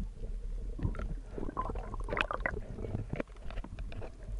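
Underwater sound: a steady low rumble of moving water with many scattered sharp clicks and knocks.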